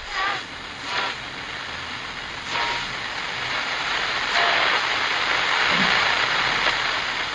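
Hiss of TV static, a steady rush of white noise that grows louder about halfway through, broken by a few short glitchy swishes.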